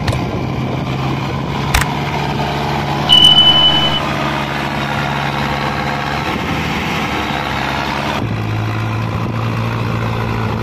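Mahindra Arjun Novo 605 DI 4WD tractor's diesel engine running steadily under load as it drags a fully loaded trolley through deep mud, its pitch dropping slightly about eight seconds in. A sharp click comes just before two seconds in. About three seconds in there is a single high beep lasting about a second, the loudest sound.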